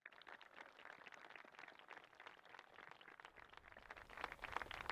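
Faint applause: many hands clapping in a dense, uneven patter, growing a little louder about four seconds in.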